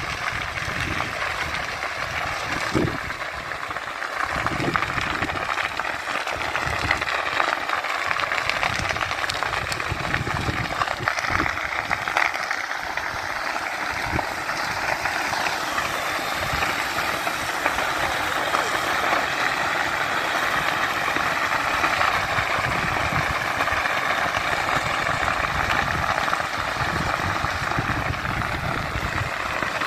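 Vegetation fire burning through trees and scrub: a steady rushing crackle with irregular low pops.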